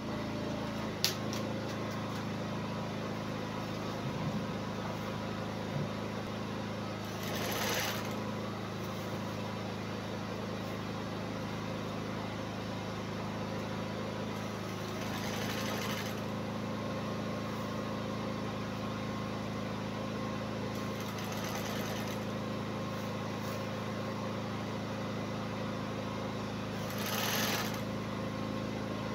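Industrial flatbed sewing machine running steadily as fabric is fed through, with a sharp click about a second in and a few brief swishes.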